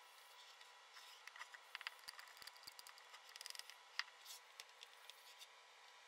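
Faint handling noise: light clicks and rubbing as soldered bullet connectors are wiped clean of flux with a cloth and denatured alcohol, with a quick run of small clicks about three and a half seconds in.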